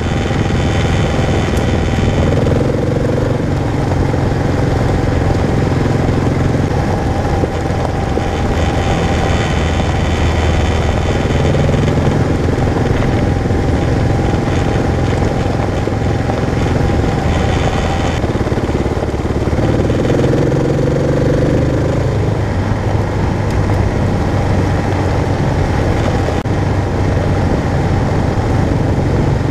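Kawasaki KLR650's single-cylinder four-stroke engine running as the motorcycle rides along a dirt road. Its note shifts several times as the speed changes.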